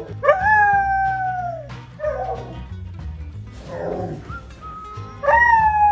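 Samoyed howling: a long drawn-out "awoo" whose pitch sags at the end, a few short grumbling and whining sounds, then a second long howl starting near the end.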